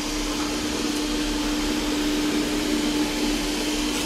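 360 S6 robot vacuum cleaner running on parquet, its suction fan giving a steady rushing whir with an even hum underneath.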